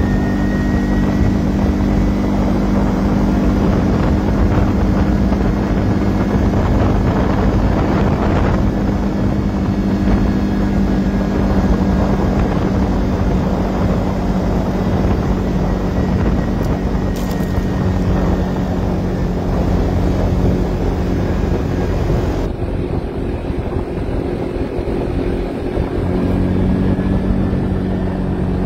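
ATV engine running steadily under way at cruising speed, its low hum mixed with wind rushing over the microphone.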